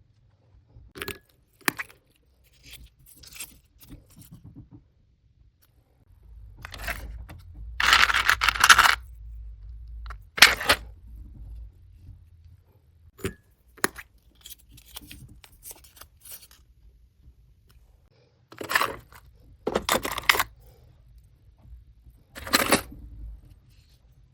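Packaging being handled and torn: irregular bursts of rustling and tearing, the longest lasting about two seconds near the middle, with several shorter ones near the end.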